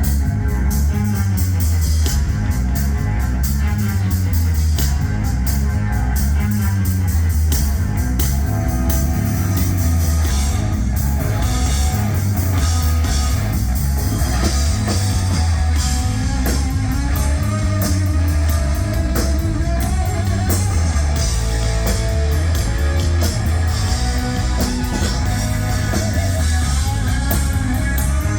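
Live heavy metal band playing: electric guitar, bass and drum kit, loud and continuous.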